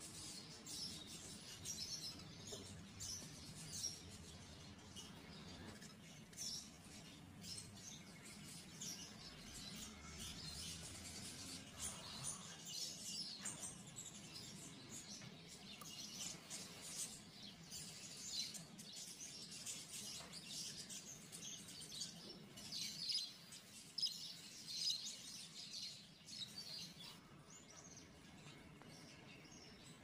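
Budgerigars chirping and chattering: a steady run of short, high chirps, with louder bursts in the second half.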